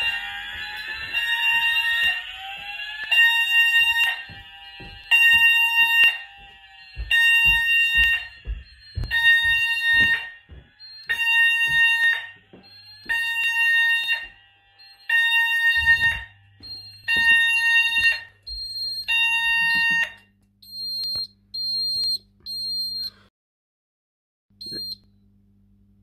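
Addressable fire alarm sounders set off by a heat test of a detector: a sweeping tone at the start, then a pulsed tone of roughly one-second beeps about every one and a half seconds. The sounders stop about twenty seconds in when silenced, followed by a few short high beeps from the control panel's buzzer.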